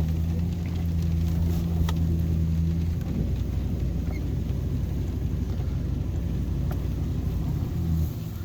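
Vehicle engine running with a steady low hum, heard from inside the cab; about three seconds in the hum turns rougher and less even.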